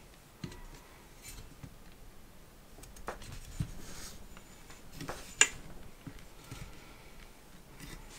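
Metal X-shaped laptop stand being handled and unfolded: its arms and hinge give a series of clicks and knocks over faint rubbing, the sharpest click about five seconds in.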